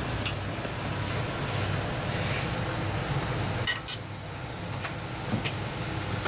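A metal ladle clinking a few times against an aluminium saucepan of boiling broth on a gas burner, over a steady low hum and an even hiss.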